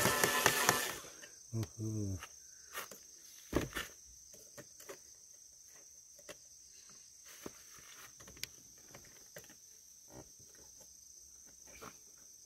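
Light clicks and taps of a licence-plate mounting bolt and nut being worked by hand against a motorcycle's plate bracket, over a steady high insect chirring. A short loud clatter comes at the start, and a brief low hum of a man's voice just after it.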